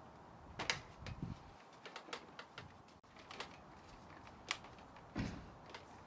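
Irregular sharp metallic clicks of an Allen key working the cap screws out of a motorcycle's plastic side fairing, with a couple of dull knocks of the fairing panel.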